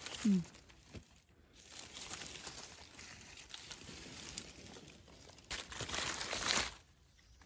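Dry fallen leaves rustling and crinkling as hands work through the leaf litter to pick a mushroom. A louder crackling burst comes a little before the end.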